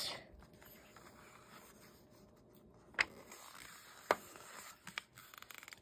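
A picture book's paper pages being turned by hand: faint rubbing and rustling of paper, with two sharp taps about three and four seconds in and a few small ticks near the end.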